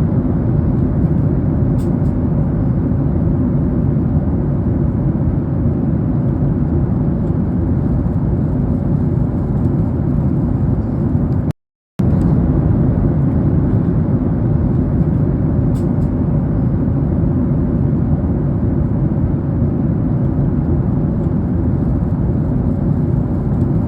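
Steady low rumble that cuts out completely for a moment about halfway through, then carries on unchanged.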